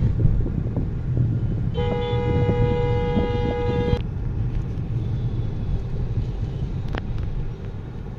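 Traffic rumbling steadily on a road bridge, with a vehicle horn sounding one steady blast of about two seconds, a couple of seconds in.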